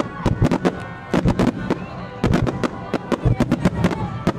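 A rapid barrage of firework shells bursting, about five sharp bangs a second, irregular and overlapping, with a brief lull a little before two seconds in.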